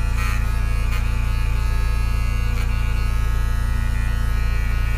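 Electric pet-grooming clipper running with a steady hum while trimming the hair on a dog's paw pads.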